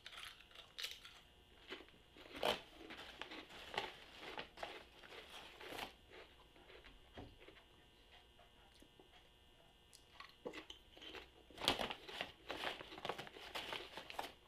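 A person crunching and chewing Lay's potato chips close to the microphone, in two bouts of crackly bites with a quieter pause of a few seconds between them.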